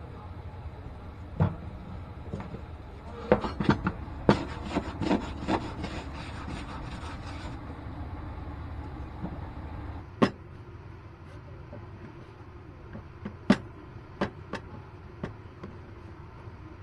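Hand-pulled noodle dough being rolled, twisted and laid down on a floured wooden board: rubbing against the wood and a quick run of knocks a few seconds in. Single sharp knocks follow about ten seconds in and again near the end. A low steady hum underneath stops about ten seconds in.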